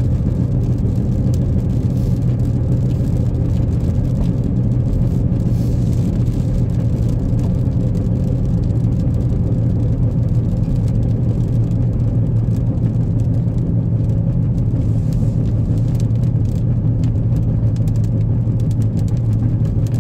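Steady road noise inside a moving car on a wet expressway: an even low hum of engine and tyres.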